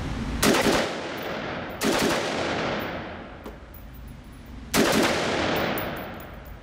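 Budget AR-15 rifle firing three double taps: three loud bursts of gunfire about half a second, two seconds and five seconds in. Each burst rings out in a long echo off the concrete walls of an indoor range.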